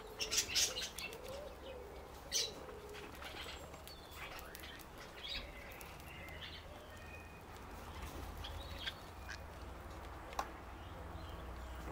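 A cockatiel tearing and chewing dandelion leaves with its beak: a quick run of crisp clicks and crunches in the first second, another about two seconds in, then scattered ticks. Other birds chirp in the background.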